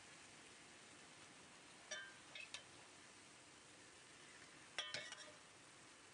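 Metal ladle clinking against metal a few times, about two seconds in and again near five seconds, over a faint hiss, as syrup is ladled onto a tray of baklava.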